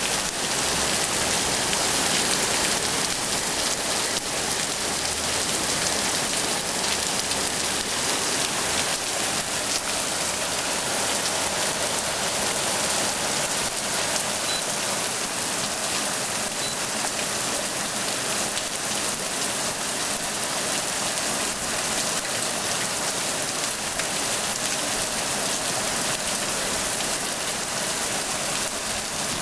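Heavy rain pouring down steadily in a flash storm, hitting surfaces outside a window.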